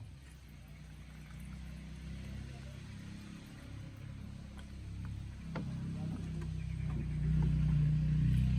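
An engine running with a steady low hum that grows louder over the last few seconds. A few sharp clicks come about halfway through.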